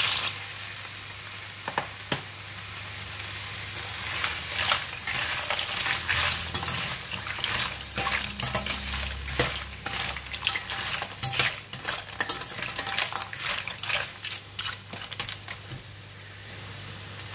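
Lala clams stir-frying in hot oil and red curry paste in a stainless-steel wok: a steady sizzle with many quick clicks and clatters of shells and a metal spatula against the pan, thinning out near the end.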